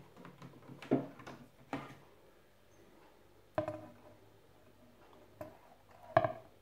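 Garrard RC 121 Mk2 record changer mechanism cycling, heard only mechanically with no amplifier connected. A run of sharp clicks comes about a second in, followed by single clunks midway and near the end, the last one the loudest, over a faint low hum.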